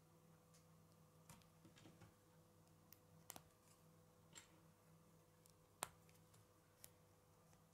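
Quiet clicks and snaps of plastic K'nex rods and connectors being pushed together by hand, about seven scattered clicks with one sharper snap about six seconds in, over a faint steady hum.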